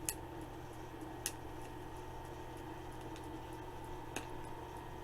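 Three short, sharp plastic clicks as a toy's plastic packaging is handled and opened, two in the first second or so and one near the end, over a steady background hum.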